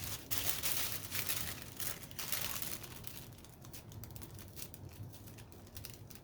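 Paper wrapping crinkling and rustling as it is handled, loudest over the first two or three seconds, then softer rustles and light ticks.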